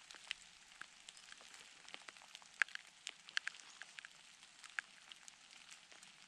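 Faint, irregular crackling and ticking from walking through wet bush and leaf litter: scattered small snaps and pattering ticks, with a few louder ones in the middle.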